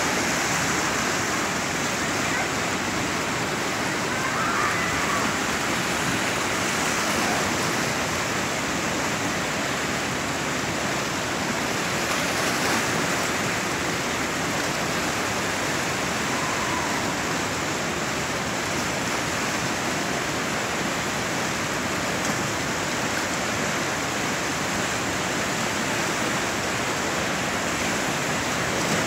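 Whitewater of a large river rapid at high flow, about 6000 cfs, rushing steadily with no let-up.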